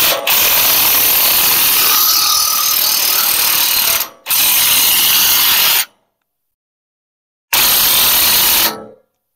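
Battery-powered driver running in three bursts, backing bolts out: one of about four seconds, a short break, then about a second and a half, and after a pause a final burst of just over a second.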